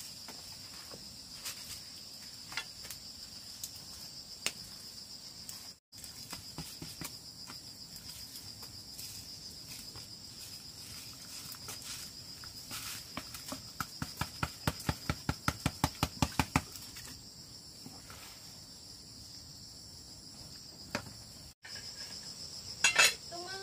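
Steady high-pitched shrilling of an insect chorus. Midway comes a run of quick, evenly spaced knocks, about five a second, lasting about four seconds.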